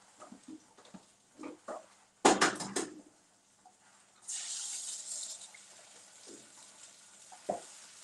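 A quick clatter of knocks at the stove a little over two seconds in, then eggs sizzling in a hot frying pan: a sudden bright hiss about four seconds in that eases to a softer, steady sizzle.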